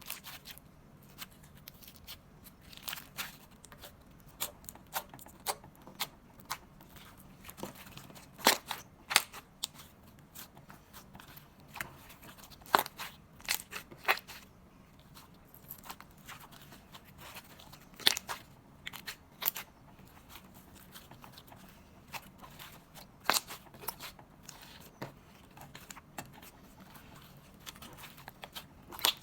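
Slime being squeezed and worked by hand, giving irregular sharp clicks and pops, some much louder than others.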